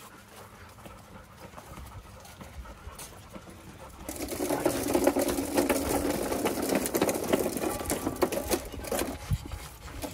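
Green plastic toy tractor rattling as its wheels roll over brick pavers, a dense rapid clatter that starts about four seconds in and stops about a second before the end.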